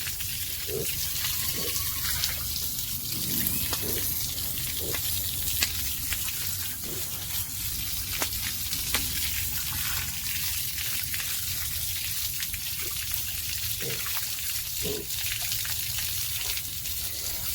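Steady hiss of running or spraying water, with a few faint short sounds now and then.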